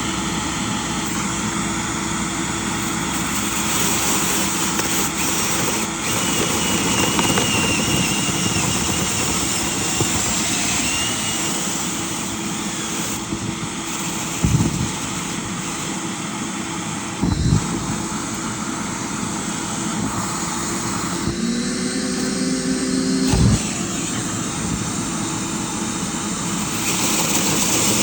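Motor-driven dryer vent cleaning equipment running steadily, with a loud rushing of air. A few sharp knocks come through about halfway and again near the three-quarter mark, and a short steady hum sounds just before the last knock.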